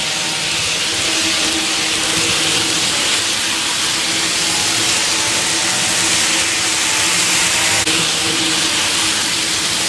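N scale model trains, a Kato TGV Lyria Euroduplex and a diesel with tank wagons, running on the track: a steady whir and hiss of motors and small wheels on the rails, with a faint hum. A single faint click about eight seconds in.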